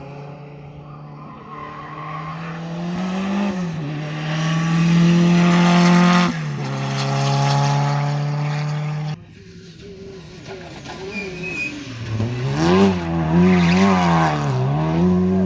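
Rally car engines driven hard: one held at high revs that drop about six seconds in, then, after an abrupt cut, another whose revs swing rapidly up and down several times near the end.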